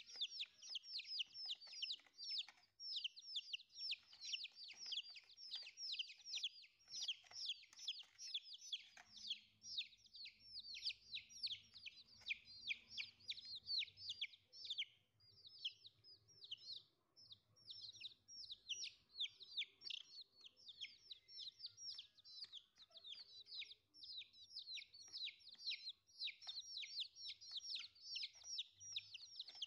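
Several young chicks peeping nonstop as they feed: a rapid stream of short, high cheeps, each one falling in pitch.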